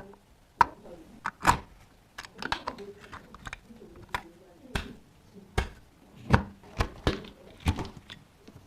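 Irregular hard clicks and knocks of PC components being handled and fitted, about a dozen sharp taps spread unevenly.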